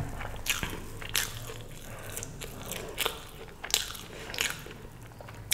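A person chewing food with the mouth close to the microphone. Sharp, crisp clicks of chewing come about one or two a second.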